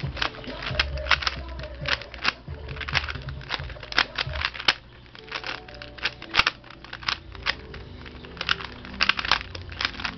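Rubik's cube being turned quickly during a solve: an irregular run of sharp plastic clicks and clacks, several a second.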